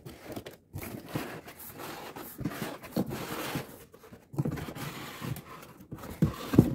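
Cardboard box and packaging being handled: rustling and scraping of foam wrap, molded paper-pulp inserts and cardboard, with a few light knocks, the last ones near the end.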